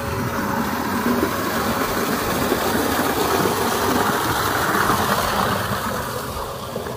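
A motor running, growing louder to a peak about five seconds in and easing off near the end.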